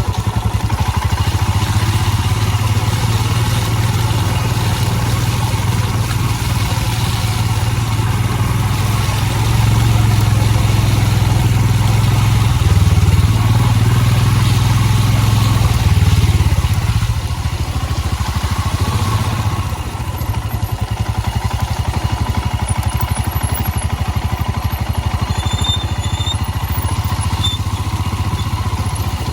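Royal Enfield Himalayan motorcycle's single-cylinder engine running, louder for several seconds in the middle, then dropping back to a lower, steady note.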